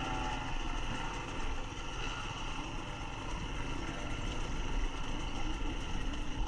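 Dirt bike engines running steadily at low speed: the camera bike's own engine close by, with other riders' bikes around it.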